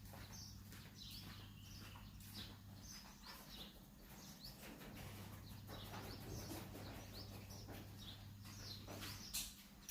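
Birds chirping faintly in short calls over a low steady hum.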